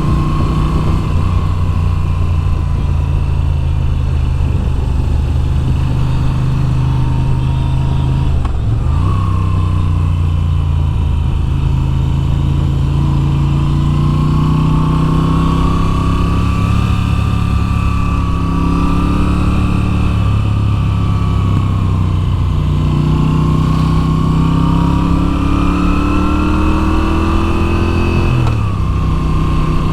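Moto Guzzi V7's 853 cc air-cooled V-twin running under way, its engine note rising and falling with the throttle through curves. The revs drop sharply and pick up again twice, about nine seconds in and near the end.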